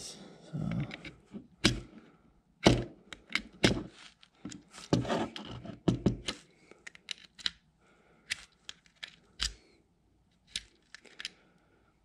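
USB-A cable plug being pushed into and pulled out of the USB port of a wall outlet, giving irregular sharp plastic-and-metal clicks and knocks with handling in between. The plug is testing the port's grip after its spring retaining tabs were bent up.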